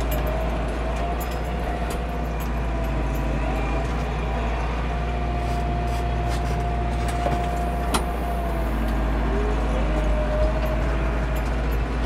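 The Landini Blizzard 65's Perkins 4.0 L four-cylinder diesel running steadily while the tractor works a fixed-tine harrow, heard from inside the cab. It is a deep, even drone with a whine that shifts slightly in pitch, and a few rattles and knocks, the sharpest about eight seconds in.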